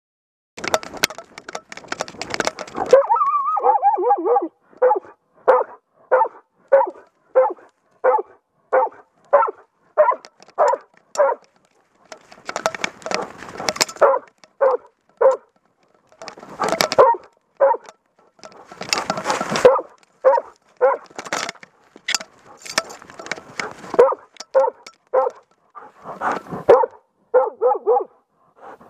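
A moose hunting dog barking steadily, about two barks a second, holding a moose at bay. Rustling from the dog moving through the brush comes between runs of barking, all very close to the microphone.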